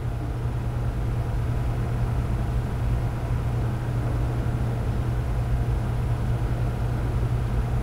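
Steady low machine hum with no change and no distinct events.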